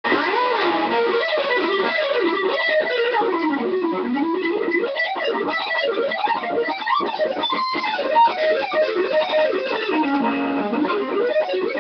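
Ibanez RG1527 seven-string electric guitar through Seymour Duncan Full Shred pickups playing fast lead runs, the notes sweeping rapidly up and down in pitch in repeated arcs.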